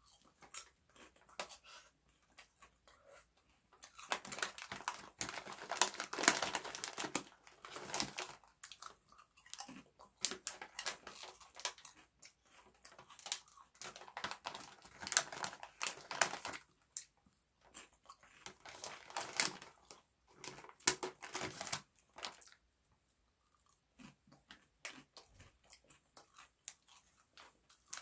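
A person biting and chewing thin, crisp Haitai Ppasak shrimp chips, loud crunching in bursts of a few seconds with short pauses between mouthfuls. The foil snack bag crinkles as more chips are taken from it.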